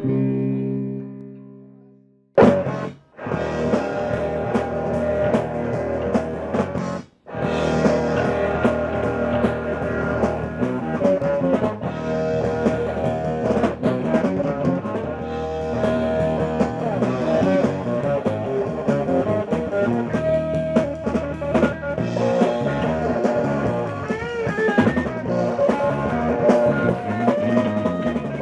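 A strummed guitar chord rings out and fades. After a short silence, a rock band with guitar and drum kit starts playing an instrumental, stops for a moment about seven seconds in, then plays on steadily.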